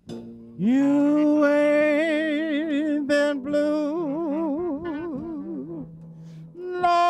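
A man singing long held notes with a wide, slow vibrato, the first note scooping up from below, over a quiet traditional New Orleans jazz band accompaniment. A new held note starts near the end.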